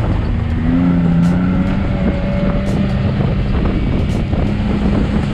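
Off-road vehicle engine running steadily, with a slight shift in pitch about a second in.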